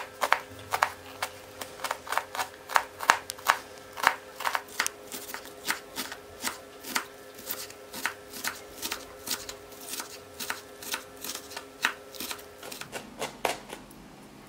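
Kitchen knife chopping onion on a wooden cutting board: steady knife strikes, about two to three a second, stopping near the end.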